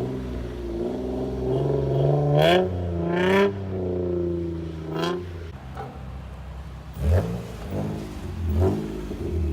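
Infiniti G35 coupe's VQ35DE 3.5-litre V6, breathing through test pipes, a Bosal cat-back and a leaky Y-pipe, revving hard: the pitch climbs twice to a peak within the first few seconds, with a couple of sharp cracks near the top, then short throttle blips rise and drop twice later on.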